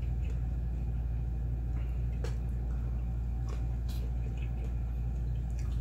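A person chewing shrimp with the mouth closed: a few faint, soft, scattered clicks over a steady low hum.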